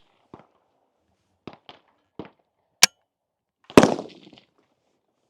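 A few faint clicks, then a sharp crack a little under three seconds in and a louder gunshot with a short echo tail about four seconds in.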